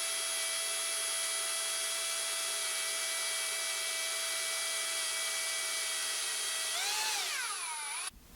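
Small high-speed power drill running with a steady high whine. About seven seconds in it is switched off, and the pitch wobbles and falls as it spins down before stopping.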